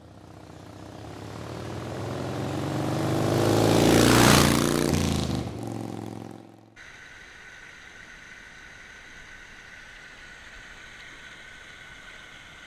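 A vehicle engine passing by: it grows louder to a peak about four seconds in, drops in pitch as it goes away, and is cut off suddenly about halfway. A steady, quieter rush of flowing stream water follows.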